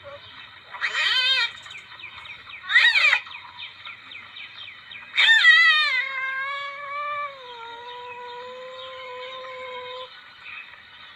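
Civet call of the kind played as a hunting lure: two short, wavering, cat-like cries, then a louder cry about five seconds in that settles into a long, steady moan lasting several seconds. A steady high buzz runs in the background.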